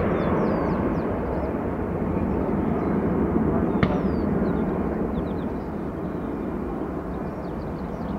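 Jet engines of a departing Airbus A320-family airliner at takeoff thrust, a steady roar that slowly fades as the aircraft climbs away. Small birds chirp faintly above it.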